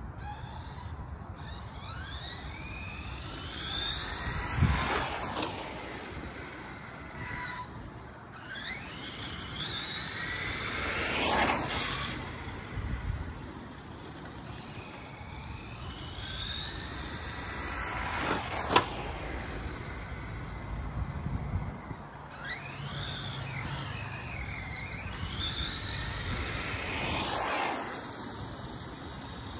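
ARRMA Mojave 4S RC truck's brushless electric motor whining in repeated bursts of throttle, the pitch rising steeply each time, about four passes in all, over the hiss of its tyres sliding on asphalt.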